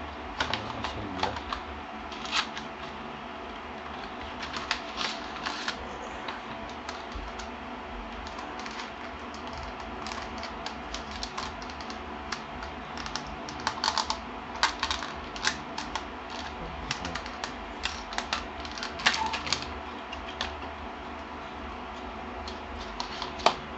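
Sealed plastic packaging of a RAM module being opened and handled: scattered sharp clicks and crackles in irregular flurries, over a faint steady hum.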